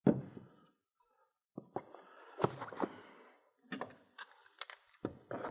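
Hard plastic handling on a tabletop: a sharp knock right at the start as the i1Pro 3 Plus spectrophotometer is set down, then scattered clicks and a brief rustle, and another knock near the end.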